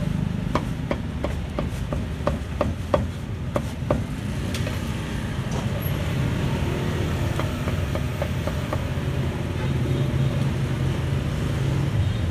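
Cleaver chopping roast pork on a thick round chopping block: a run of sharp knocks, about three a second, for the first four seconds, then stopping. A steady low rumble of street traffic runs underneath.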